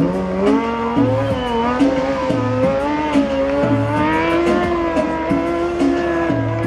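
Sport motorcycle engine revving up in the first second, then held at high, nearly steady revs during a stunt run, its pitch creeping slowly upward.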